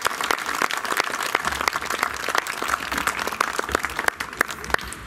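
Audience applauding: many hands clapping, thinning out near the end.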